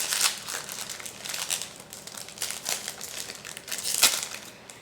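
Toy packaging crinkling and crackling as it is opened by hand, with one louder sharp crackle about four seconds in.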